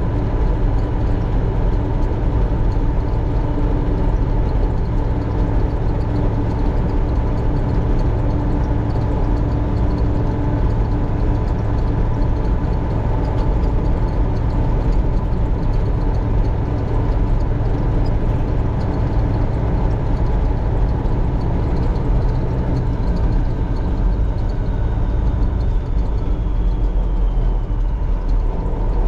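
Combine harvester's diesel engine and threshing machinery running steadily, with a faint falling whine near the end.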